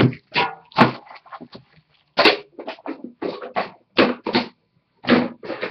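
Hands handling and opening a cardboard trading card box: a rapid series of short, sharp scrapes, knocks and rustles.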